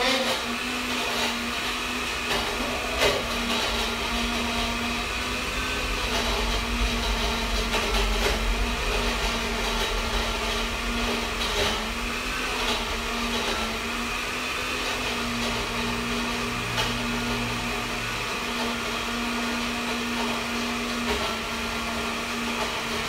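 Countertop blender running steadily with its motor humming, pureeing a thick, creamy sauce in its jar.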